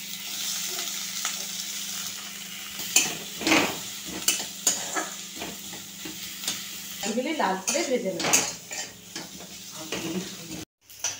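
Sliced onions sizzling in hot oil in a steel wok. From about three seconds in, a spatula scrapes and clinks against the metal as they are stirred.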